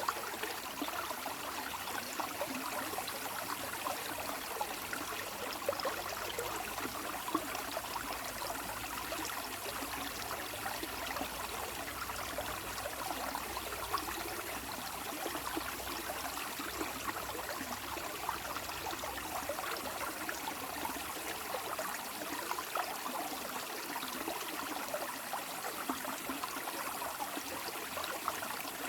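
Water flowing steadily, an even rushing noise with a dense patter of small splashes and no let-up.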